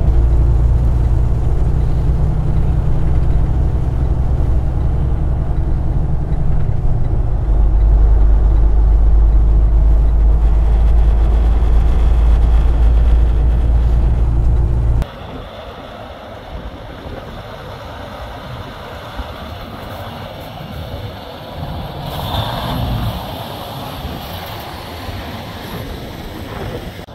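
Semi truck running down the highway, heard from inside the cab: a steady, loud low diesel drone with road noise. About halfway through it cuts off suddenly to much quieter, even outdoor noise.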